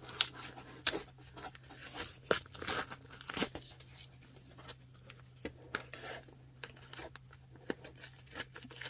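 Padded paper mailer envelope being torn open by hand, in irregular short rips and crinkles, over a faint steady low hum.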